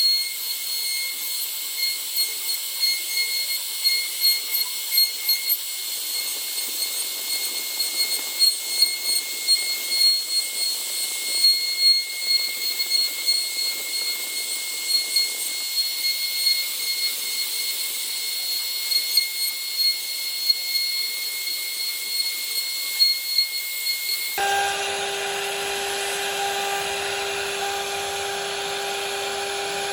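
CNC router spindle running with a steady high whine and hiss while it carves wood, with irregular louder peaks as the bit cuts. About 24 seconds in the sound switches abruptly to a lower-pitched whine.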